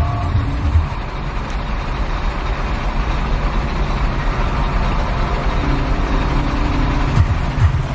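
Idling road traffic heard from inside a stopped car: a steady low engine rumble from trucks standing close by, with general street noise over it.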